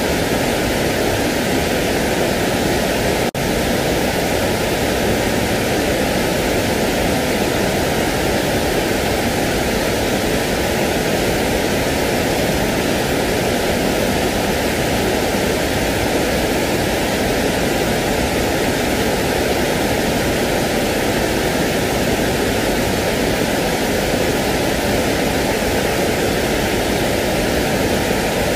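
Steady, even pink-style noise, with a brief dropout about three seconds in.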